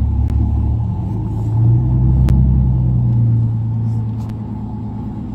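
Truck engine and road rumble heard from inside the cab while driving. The engine note rises and grows louder about a second and a half in, then eases off again near the end.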